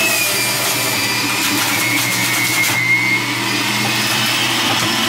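Electric centrifugal juicer running steadily at speed as celery stalks are pushed down the feed chute and shredded, with rougher grinding in the middle of the stretch.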